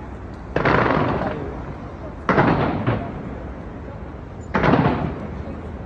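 Fireworks going off: three bangs about two seconds apart, each trailing off over about a second.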